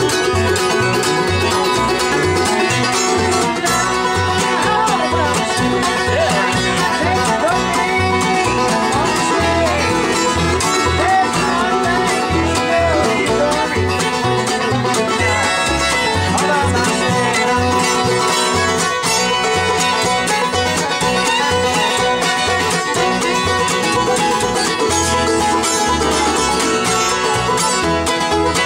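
Acoustic bluegrass band playing a tune without singing: fiddle, mandolin and acoustic guitar over a steady beat of upright bass notes.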